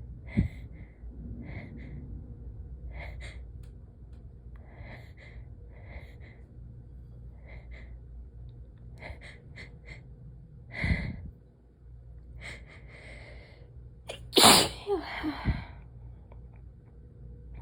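A woman's sneezing fit: a run of short, quick breaths, then a sneeze about 11 seconds in and a louder one about 14.5 seconds in.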